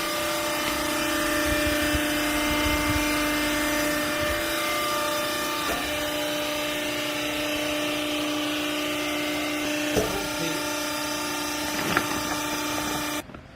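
Garment baling press running: a steady motor hum with a few knocks, cutting off abruptly near the end.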